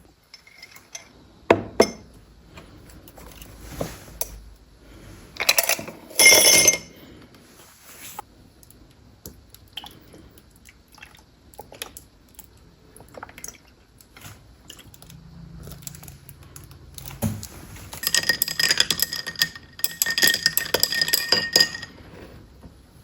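Dishes and cutlery clinking: scattered knocks and a couple of ringing clinks, then several seconds of rapid clinking near the end, like a spoon working against a ringing bowl or glass.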